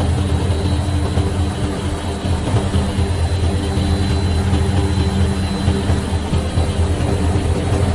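Soap-making machinery running steadily: a loud low electric-motor hum from the laundry-soap line's roller mill and feed equipment, with a faint high whine over it.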